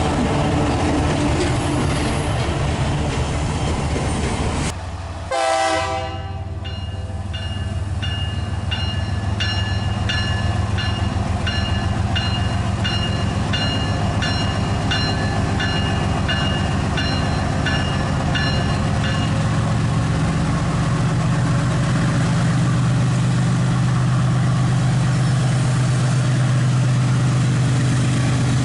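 Diesel freight locomotives running with a steady engine rumble. Just after a cut about five seconds in comes a short horn-like tone, then a regular high ringing repeats about one and a half times a second for some twelve seconds while the engines swell toward the end.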